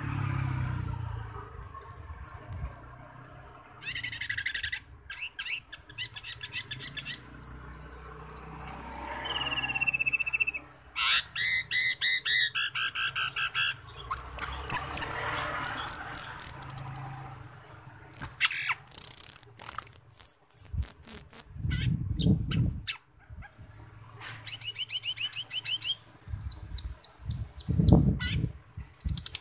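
Asian glossy starling singing a varied, shrill song: runs of fast falling chips, trills and long high whistles, the loudest whistles about halfway through. Two short low thuds come in the second half.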